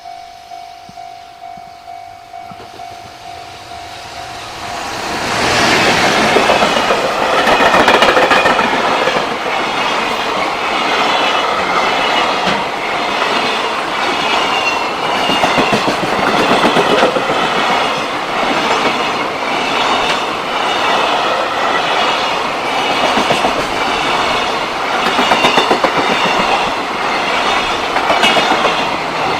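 A level crossing's warning bell rings in a steady pulsing beat. About five seconds in, a JR Freight train arrives and passes loudly over the crossing. Its wagons' wheels clatter in a regular rhythm.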